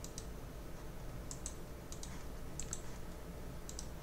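Computer mouse clicking: about five short pairs of sharp clicks, irregularly spaced, over a faint steady low hum.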